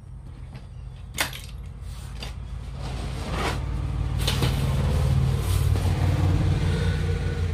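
A low engine rumble that grows louder from about three seconds in. A sharp click comes a little after a second in, and a few brief scraping or handling noises follow.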